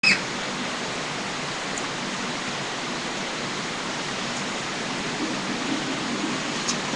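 Steady, even hiss of background noise, with a short high chirp in the first instant and a few faint high ticks.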